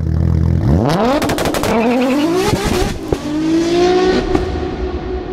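Produced engine-rev sound effect: a low car-engine rumble, then two sharp rising revs with a quick run of crackling clicks, settling into a held note that begins to fade near the end.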